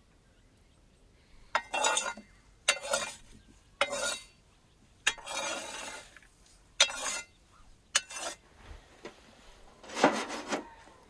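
A run of about seven short scraping, rustling handling noises, each under a second, roughly one a second, from working with the cookware and the wood-fired oven; the last, near the end, is the loudest.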